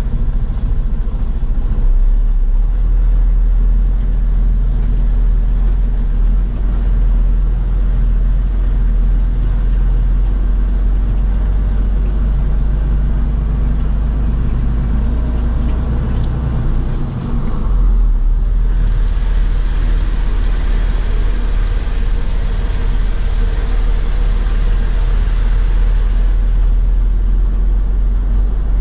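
Lorry's diesel engine running, heard from inside the cab as it drives slowly: a steady low rumble that dips briefly past the middle. A hiss joins for about eight seconds after the dip, then stops.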